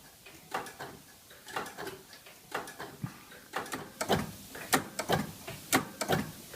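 Irregular light mechanical clicks and knocks, a dozen or more, sparse at first and coming faster and louder after about three and a half seconds, as clock or relay equipment is handled.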